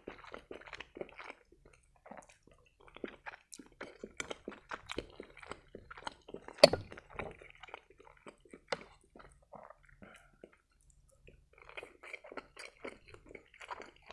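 Close-miked chewing and wet mouth smacking of a man eating boiled meat dumplings (pelmeni) with sour-cream sauce. One sharp click stands out about seven seconds in, and the chewing pauses briefly about two-thirds of the way through.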